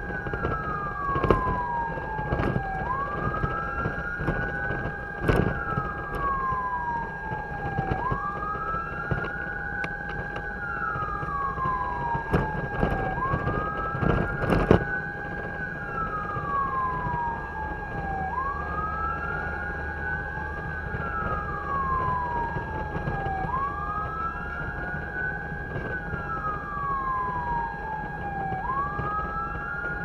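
Fire truck siren wailing, a slow rise and fall in pitch repeating about every five seconds, heard from inside the cab over engine and road rumble, with a few sharp knocks.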